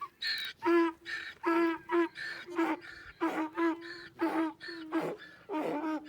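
A herd of goats bleating over one another, one short call after another in quick succession, some higher-pitched than others.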